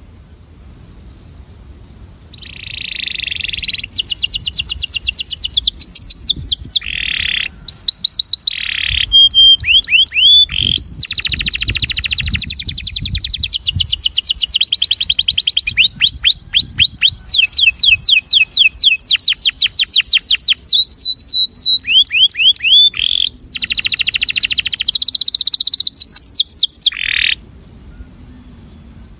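Male domestic canary singing its breeding courtship (attraction) song: long fast trills of quick high down-slurred notes, shifting from one rolled phrase to the next. The song starts about two seconds in and stops a couple of seconds before the end.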